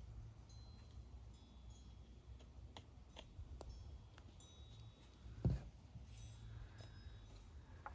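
Quiet handling of a squeeze glue bottle and a small cardboard piece: a few faint clicks, then a soft thump about five and a half seconds in as the bottle is set down. Faint high chiming tones and a low rumble sit in the background.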